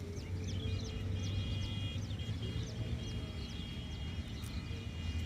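Small birds chirping, short high falling calls repeated a few times a second, over a steady low rumble, with held high tones in short stretches alongside.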